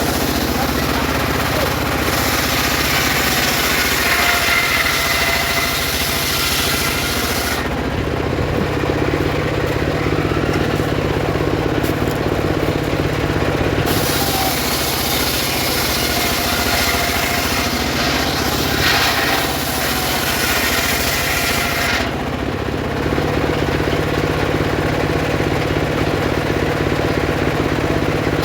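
Homemade circular saw ripping sengon wood, the blade's high cutting noise running over the steady hum of the machine. The cutting noise stops about a third of the way in, resumes for several seconds and stops again near the end, while the machine keeps running.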